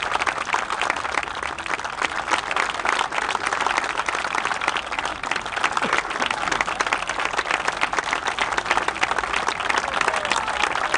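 Crowd applauding, many people clapping at once in a dense, steady patter.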